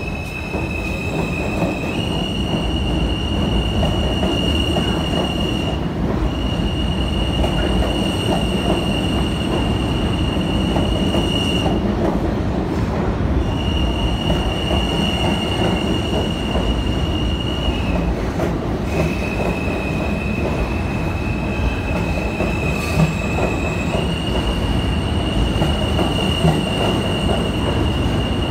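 R160 subway train rolling out of an underground station past the platform: a steady rumble of steel wheels on rail, with a loud high-pitched wheel squeal. The squeal holds one pitch, shifts slightly up and down, and breaks off briefly twice.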